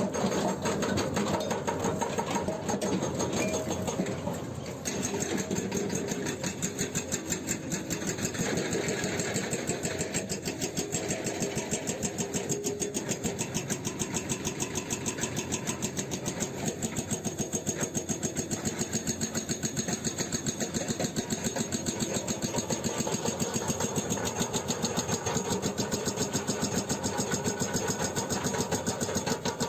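Hydraulic breaker hammer on a Hyundai 210LC-7H excavator pounding rock in a fast, steady rattle of blows, over the running diesel engine.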